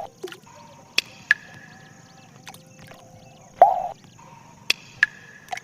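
Water drops falling into water, making irregular plops and plinks, some with a short ringing tone, about seven in all. The loudest plop comes a little past halfway.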